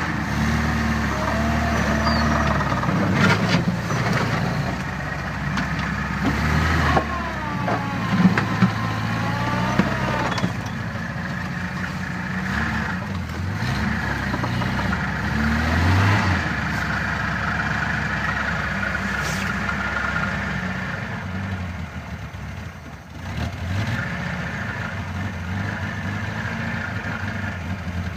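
Vehicle engine running after a cold start in about -20 °C frost, its speed rising and falling at times.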